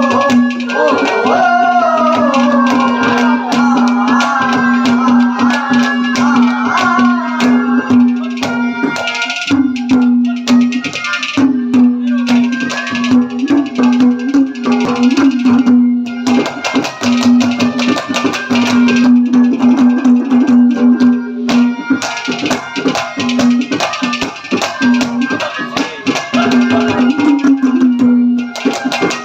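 Instrumental interlude of ragni folk music: a steady held note under a gliding melody in the first few seconds, with hand drums and rattling percussion playing throughout.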